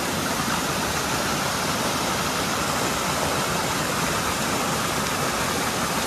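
Small waterfall cascading over rocks: a steady rush of falling water.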